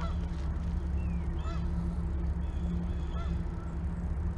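A few short honking calls from geese over a steady low hum.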